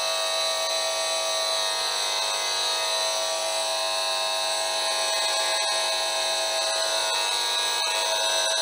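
Audio signal from a handheld Esmog Spion electric-field meter: a steady electric drone of several tones held together, its speaker voicing the electric field the meter picks up from the computer side panels.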